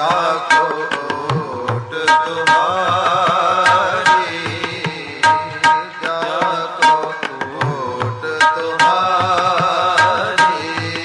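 Gurbani kirtan in Raag Todi: tabla strokes under harmonium drones and a man singing a wordless, ornamented melodic passage.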